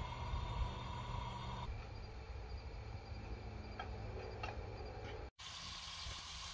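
Propane camp stove burning under a frying pan of sliced sausage with a low steady rumble, and insects chirping in the night air. After about five seconds there is a faint sizzle from the pan.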